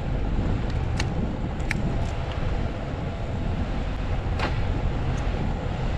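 Bajaj Pulsar NS200 motorcycle on the move: a steady low rumble of wind and road noise on the bike-mounted camera, with a few short clicks.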